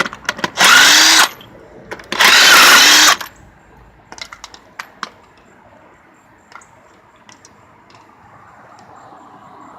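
A power tool spins the loosened lug nuts off the wheel studs in two bursts of about a second each, its motor pitch rising and settling. These are followed by a few light clicks and knocks.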